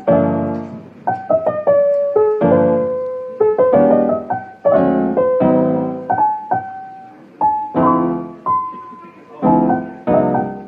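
Background piano music: a slow tune of struck chords and single melody notes, each note fading away after it is played.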